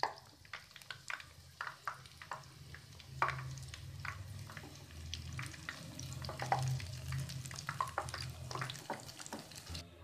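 Spinach and gram-flour pakora batter frying in hot oil in a karahi: a steady sizzle with many sharp crackles and pops throughout. A low steady hum runs underneath.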